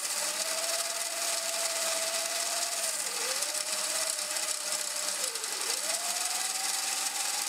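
Motor of a 3D-printed RC boat outboard running on the bench, spinning its plastic bevel-gear drivetrain with a steady whine over a rasping whir. The whine dips in pitch twice, about three seconds in and again about five and a half seconds in, then climbs back, as the gearbox is shifted under power.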